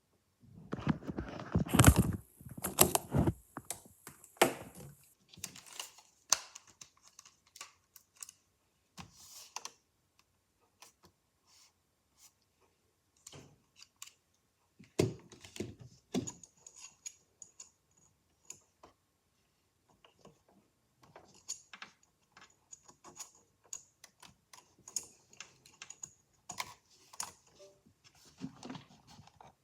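Irregular clicking and tapping at a computer, like keyboard typing. A louder, denser cluster of knocks comes a second or so in and another about halfway through.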